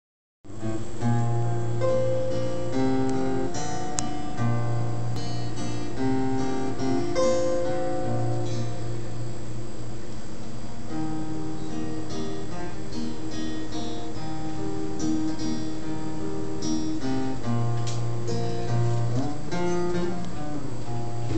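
Acoustic guitar playing an instrumental introduction, changing chords strummed and picked with ringing held notes; it comes in abruptly about half a second in.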